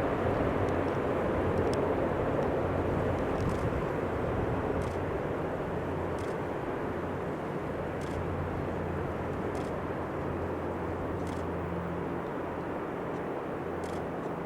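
Tupolev Tu-95MS bomber's four NK-12 turboprop engines with contra-rotating propellers, a steady low drone with a deep hum, slowly fading.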